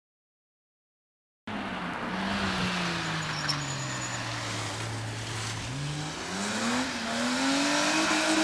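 BMW E30 race car's engine, starting after about a second and a half of silence: its revs fall steadily for a few seconds, then climb again as it accelerates.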